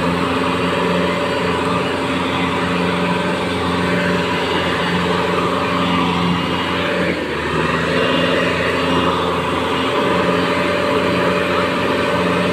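Farm tractor's diesel engine running steadily under load as it pulls a loaded trailer through paddy mud. About seven seconds in, the engine note dips briefly, then picks up again.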